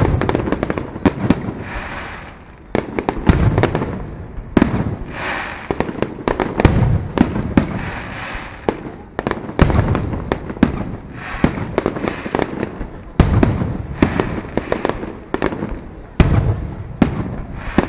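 Aerial firework shells bursting in quick succession, sharp bangs every second or two with crackling and echoes between them.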